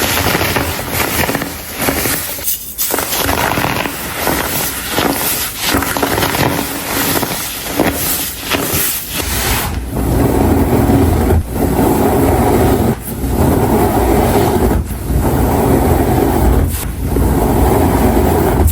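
Compressed baking soda being crushed and crumbled by hand, a dense crackly crunching. About halfway through it changes to a heavier, deeper squishing and rubbing of loose powder in strokes a second or two apart.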